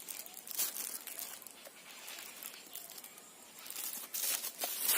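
Faint rustling and crinkling of parcel packaging being handled and unwrapped, with a few light clicks, a little louder near the end.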